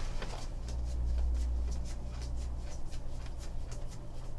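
A stack of Panini football trading cards being flipped through by hand, a quick irregular run of soft flicks and slides of card against card, with a low rumble about a second in.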